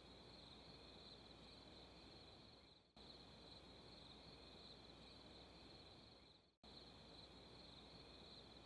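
Near silence, with faint, steady, high-pitched insect chirring that drops out briefly twice.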